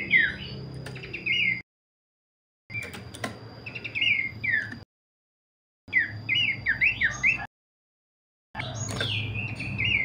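Horsfield's babbler (pelanduk semak) singing in quick runs of short chirps that slide downward in pitch. The runs come in four bursts broken by sudden gaps of dead silence.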